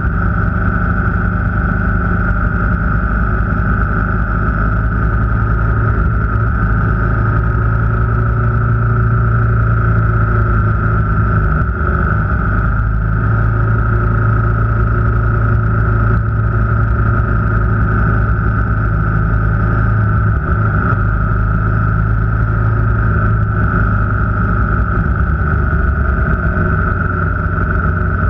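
A motor vehicle travelling at a steady cruise: the engine drones at a nearly constant pitch under continuous road noise.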